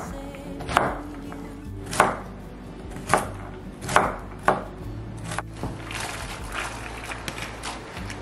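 Kitchen knife dicing carrots on a wooden cutting board: single sharp chops about a second apart, dying away after about five seconds, over soft background music.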